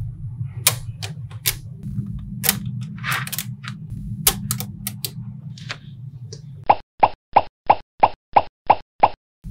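Small magnetic balls clicking and snapping together in irregular sharp clicks over a steady low hum. Near the end the hum drops out and eight evenly spaced clicks follow, about three a second, with silence between them.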